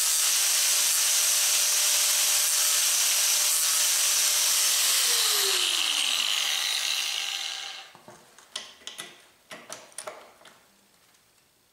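Angle grinder grinding a metal part clamped in a vise, then switched off about five seconds in, its whine falling in pitch as the disc spins down. After that come a few sharp clicks and knocks as the part is handled in the metal vise.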